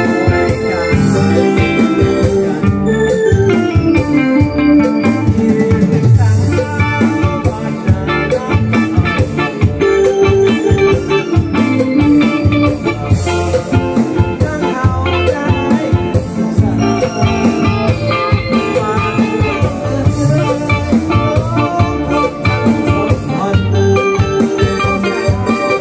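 Lao party band playing live: electronic keyboard and electric guitar over a steady beat.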